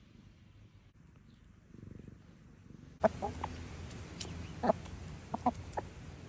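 Chickens clucking: a run of short, separate clucks that starts about halfway through, after a quiet first half.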